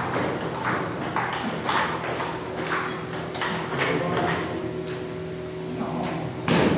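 Table tennis balls clicking off bats and tables in rallies: a quick, uneven stream of sharp pocks, about two to three a second, with one loud hit near the end, over a faint steady hum.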